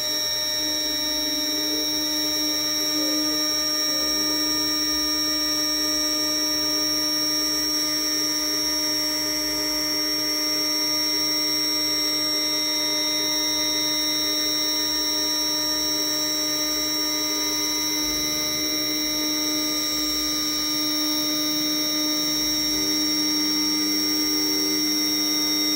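CNC router spindle running with a steady high-pitched whine while a 0.5 mm conical bit engraves lines into birch plywood. The lower tones of the machine shift about two-thirds of the way through and again near the end.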